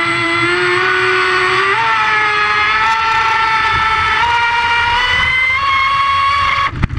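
Onboard sound of a 1.08 m Osprey radio-controlled racing boat running flat out: a high-pitched motor note that climbs in pitch in small steps as the boat speeds up. Near the end the motor note cuts off abruptly, leaving a low rush of water and wind.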